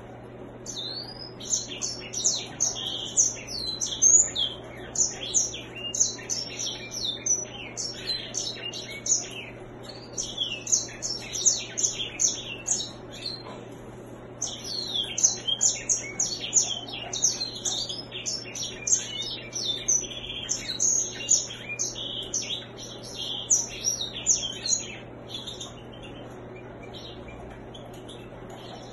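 A caged grey singer (white-rumped seedeater, Serinus leucopygius) singing a long, rapid song of high twittering and warbling notes, with a short break about halfway through; the song stops a few seconds before the end.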